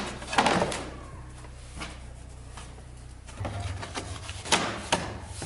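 Thin plywood cutout pieces being handled and set into a wooden door frame: scattered light wooden knocks and clatters, with two sharper knocks near the end, over a low steady hum.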